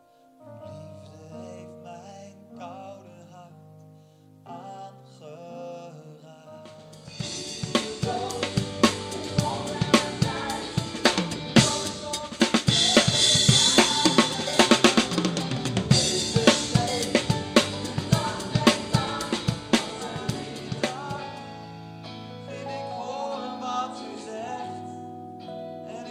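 Live band music: keyboard chords on Nord keyboards alone at first, then after about seven seconds a full drum kit comes in with snare, bass drum and crashing cymbals, the loudest part. Near the end the drums drop back, leaving sustained keyboard chords over a bass line.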